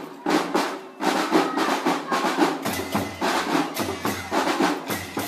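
Marching drum band percussion playing a fast rhythm, with rapid snare-drum strokes.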